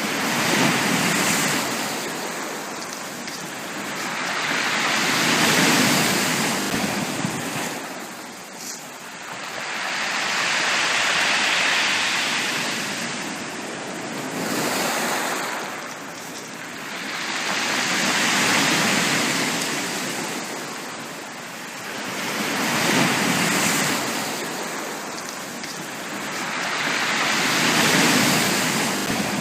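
Ocean waves breaking on a beach: surf rising and falling in slow, even swells, about one wave every five seconds.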